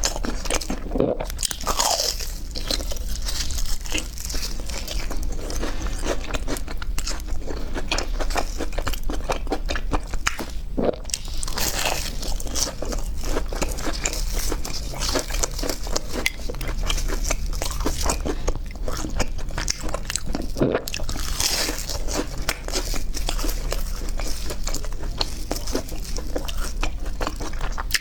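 Close-miked crunching and chewing of crispy deep-fried food, bite after bite with a steady crackle throughout.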